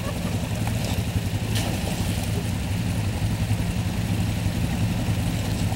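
Four-wheel ATV engine running steadily at a low idle as it is eased over rocks, with one sharp click about a second and a half in.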